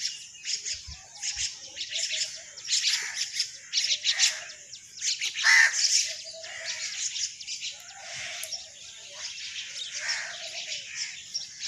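Morning birdsong: many small birds chirping and twittering at once, a constant overlapping chorus of short high calls.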